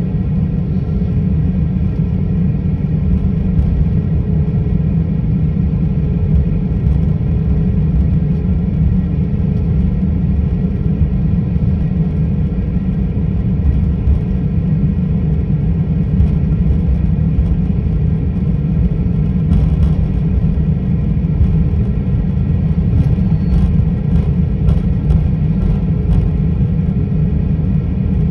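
Steady low rumble inside an airliner's cabin while taxiing, from the jet engines at low power and the wheels rolling on the taxiway, heard from a window seat over the wing.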